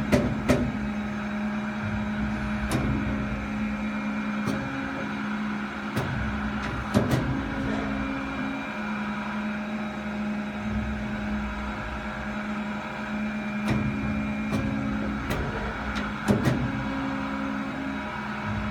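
CNC circular saw blade sharpening machine for carbide-tipped blades running with a steady hum, with occasional sharp clicks or knocks at irregular intervals.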